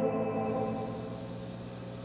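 Electric guitar chord from a Gibson Les Paul with Classic 57 humbuckers through a Fender Pro Junior III, fading away in the Ghost Echo reverb tail and leaving a low, steady amp hum.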